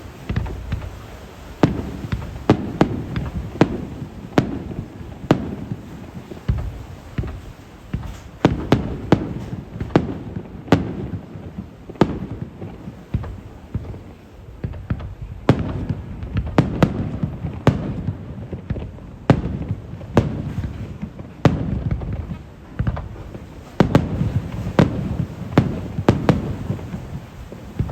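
Aerial fireworks shells bursting one after another in rapid clusters, sharp bangs each followed by a low rumbling echo.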